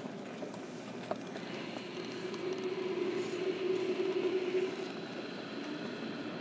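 JR Kyushu 305 series electric train running, heard from inside a motor car: steady wheel-on-rail rumble with the Toshiba permanent-magnet motor's inverter drive adding a thin high whine from about a second and a half in and a stronger hum through the middle.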